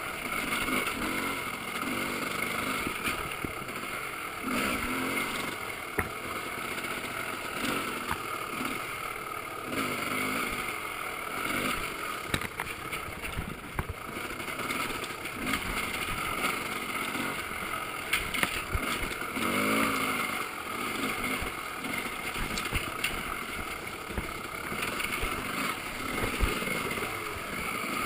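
Dirt bike engine picked up by a GoPro in its case on the rider's chest, the throttle opening and closing in short bursts at low trail speed. Frequent knocks and clatter come from the bike over rough ground and brush.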